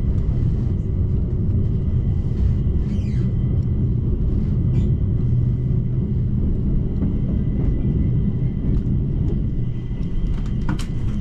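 Stockholm metro train running, heard from inside the car: a steady low rumble of wheels on the track with a faint steady high whine, as the train runs into a station. A brief sharp sound near the end.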